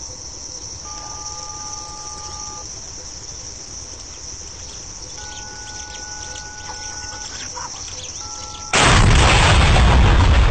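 Steady outdoor ambience with a high, even insect drone, then about nine seconds in a sudden, loud explosion as the border post is blown up, its blast going on as a long roar.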